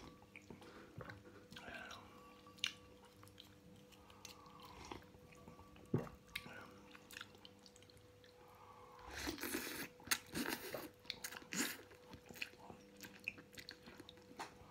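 Person eating ramen noodles with chopsticks: quiet chewing with a few sharp clicks, then a run of loud slurps about nine to twelve seconds in.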